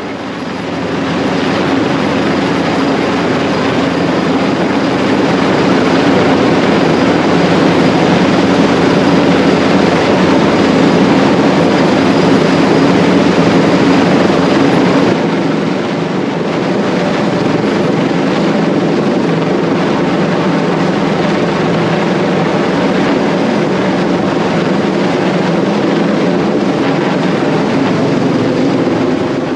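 Helicopter hovering close overhead during a winch-cable hoist: loud, steady rotor and engine noise. It dips slightly and turns a little duller about halfway through.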